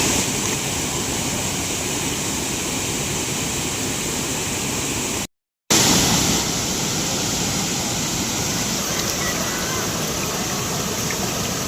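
Waterfall: a steady, loud rush of falling water. It cuts out completely for under half a second about five seconds in, then resumes.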